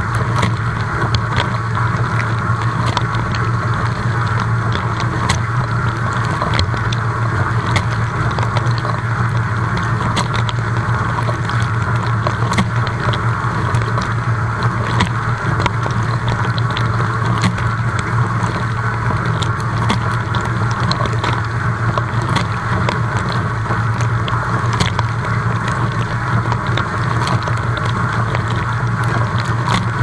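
Dishwasher running mid-wash, heard from inside the tub: the wash pump hums steadily while water sprays and splashes over the dishes, with scattered sharp ticks of droplets striking.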